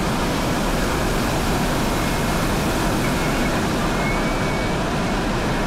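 Steady rush of water cascading down a waterfall, an even, unbroken roar of falling water.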